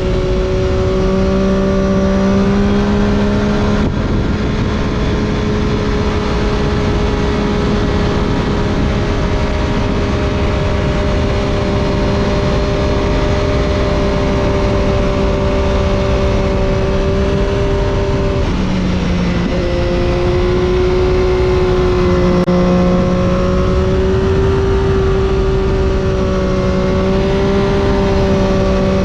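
Triumph Daytona 675's inline three-cylinder engine through an Arrow exhaust, heard onboard at nearly steady revs under heavy wind rush. About two-thirds of the way through the engine note breaks briefly and settles slightly lower before holding steady again.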